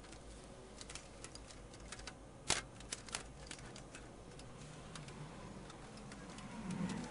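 Scattered small clicks and taps from a desktop PC being taken apart: cable connectors pulled off the motherboard and a screwdriver working its screws inside the sheet-metal case. The sharpest click comes about two and a half seconds in, with a few more just after.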